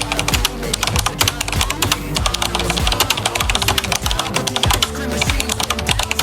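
Background music with a dense, irregular run of rapid clicks over it, like a typing sound effect.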